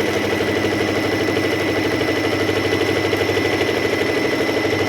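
Singer M3505 sewing machine running steadily at speed, the needle stitching a narrow zigzag with a rapid, even stitching rhythm.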